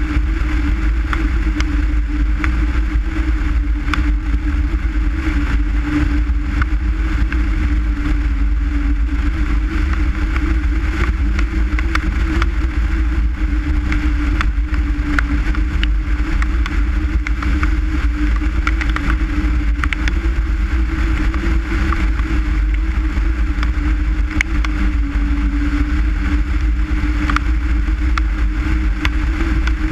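Skoda Forman car's engine droning steadily at a constant cruising speed, its pitch wavering slightly, over a heavy low rumble of road and tyre noise.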